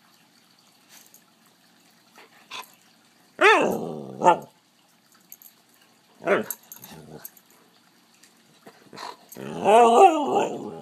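Husky 'talking': three drawn-out vocal calls, the first falling in pitch about three and a half seconds in, a shorter one about six seconds in, and the longest, wavering one near the end.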